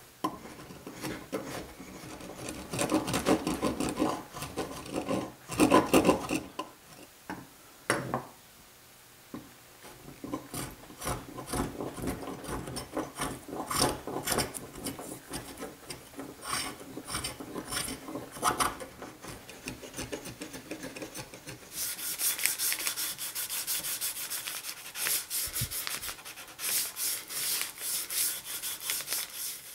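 Spokeshave cutting along the curved end profile of a wooden leg in repeated shaving strokes. From about two-thirds of the way in, this gives way to quicker, scratchier hand sanding of the same edge with 150-grit sandpaper.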